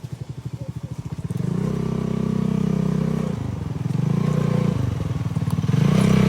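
Polaris RZR 170's small single-cylinder engine running, first at an even, fast-pulsing idle, then revving up about a second and a half in, easing off and picking up again a couple of times.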